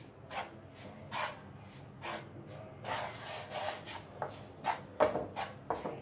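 Wooden spatula scraping and stirring through a frying pan, working milk powder into roasted gram flour (besan): irregular rubbing strokes, with a few sharper knocks near the end.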